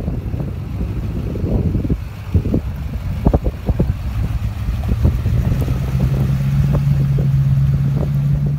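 Duramax 6.6 L V8 turbodiesel in a GMC pickup running as the truck pulls away and drives past: a deep, steady engine drone that settles into a strong held note over the last few seconds, with a few sharp clicks in the middle.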